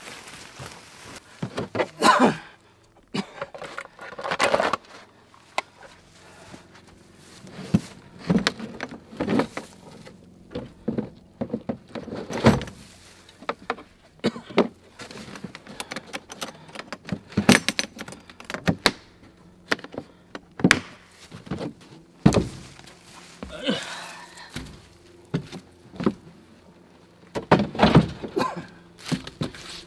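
Scattered knocks, clunks and rattles as gear is handled in and around a pickup truck's bed, with a storage lid being lifted.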